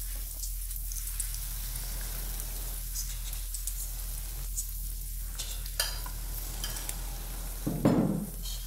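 Hot deep-frying oil sizzling steadily with scattered crackles around a fried egg held just above it. A dull thud near the end.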